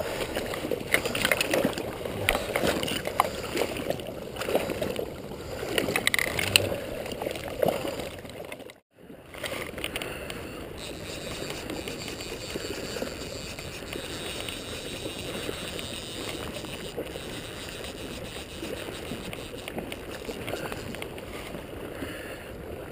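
River water splashing and rushing around a wading angler. For the first several seconds there is irregular splashing and handling noise as a fish is unhooked in a landing net. After a brief drop-out about nine seconds in, it settles into a steady rush of current.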